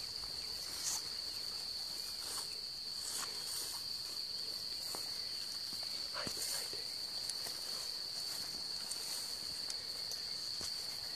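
Insects chirring in one steady high drone, with footsteps swishing through tall grass now and then.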